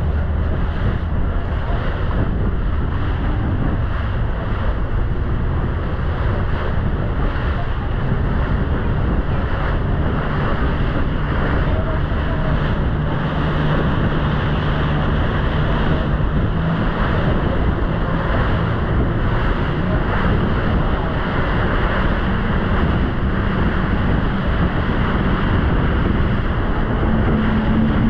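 Motorboat under way: engine running, with water rushing past the hull and wind buffeting the microphone. The engine hum rises in pitch about eight seconds in and again near the end.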